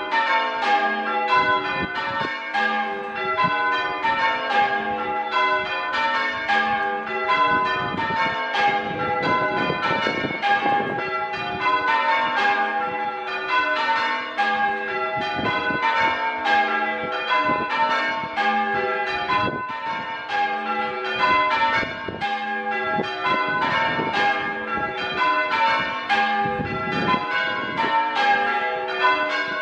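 A ring of six church bells, tenor about 8¾ cwt in G, being change-rung full circle. The bells strike one after another in a steady, unbroken stream of changes.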